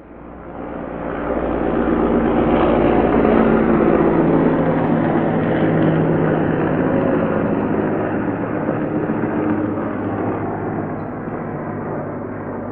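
Heavy military transport helicopter flying, its rotor and turbine sound swelling up over about two seconds, loudest a few seconds in, then slowly easing off as it passes.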